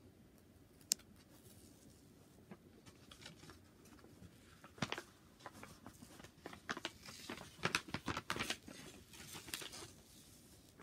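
Plastic film over a diamond painting canvas rustling and crinkling as it is handled, in a string of quick, irregular crackles from about four seconds in. A single sharp click comes about a second in.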